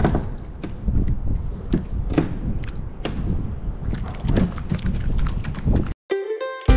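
Wind buffeting the microphone with scattered knocks and thumps as a freshly landed tautog is handled aboard a kayak. About six seconds in, the sound cuts off and faint held music tones begin.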